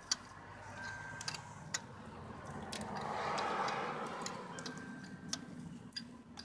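A 12 mm ratchet wrench clicking in scattered ticks as the new glow plugs are tightened down in the diesel's cylinder head. A soft whooshing noise swells and fades around the middle.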